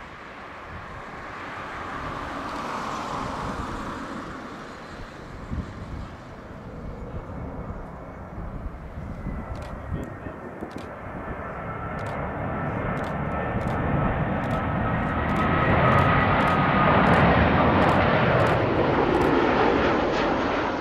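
Airbus A340-300 airliner on final approach, its four CFM56 turbofans making a jet roar with a high whine. The sound grows louder as the aircraft nears, is loudest in the last few seconds, then cuts off abruptly.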